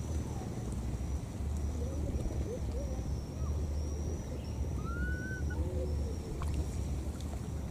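Outdoor ambience: a steady low rumble underneath, a thin high-pitched whine repeating in stretches of about half a second, and a few short bird-like chirps, with one rising-and-falling call about five seconds in.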